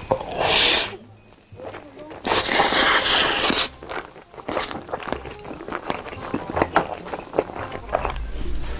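Close-up eating sounds: two loud crackling bursts, then a run of small crunching clicks as food is chewed.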